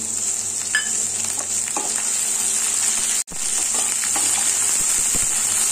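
Mixed vegetables (cauliflower, peas, carrots, beans, onion) sizzling in hot ghee in a non-stick kadai while a wooden spatula stirs them, with light scraping clicks against the pan. The sizzle cuts out for an instant a little over three seconds in.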